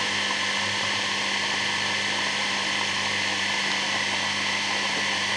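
Dishwasher pump motor running flat out on its way to burnout, with its impeller blades broken off: a steady electric hum and whine with a hiss of air.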